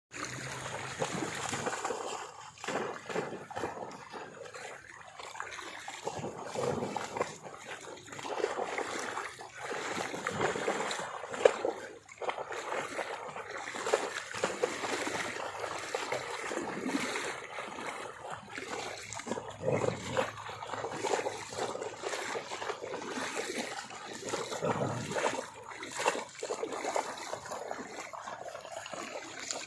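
A dog splashing and sloshing about in floodwater, in irregular bursts, with one sharp, louder splash about eleven seconds in.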